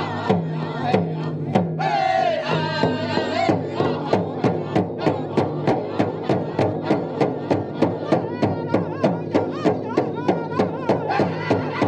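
Powwow drum group playing live: a big drum struck in unison in a fast, steady beat of about three strokes a second under the singers' high, wavering chant, with a high vocal line coming in about two seconds in.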